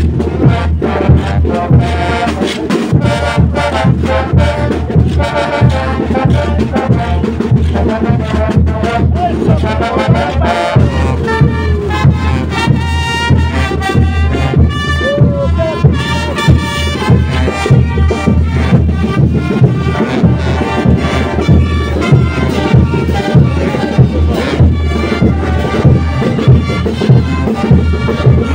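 Band music with brass instruments and a steady drum beat, playing festive traditional music.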